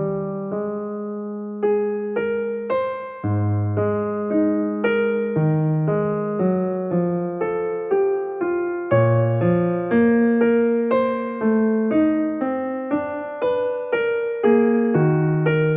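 Slow, gentle piano music: single notes and chords struck about once or twice a second, each ringing and fading.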